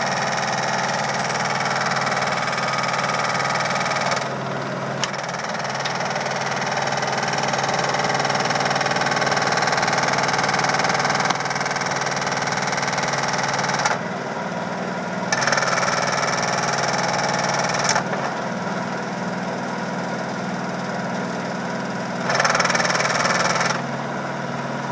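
Samsung VRT steam washing machine on its spin cycle: a steady motor hum under loud banging and rattling that shifts in tone every few seconds. The banging comes from a small plastic mount at the back that has broken off, which sounds horrible for such a small part.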